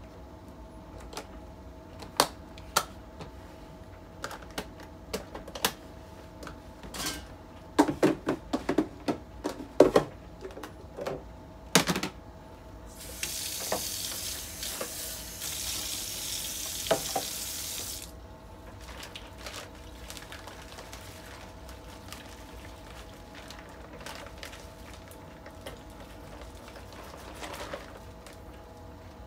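Plastic food-storage container lids and latches clicking and knocking as they are handled and snapped shut. This is followed by a tap running for about five seconds, then a soft rustle of plastic near the end.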